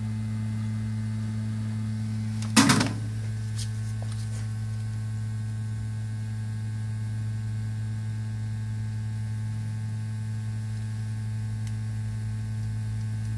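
Steady low electrical hum, with a short sharp clatter about two and a half seconds in and two fainter clicks over the next two seconds.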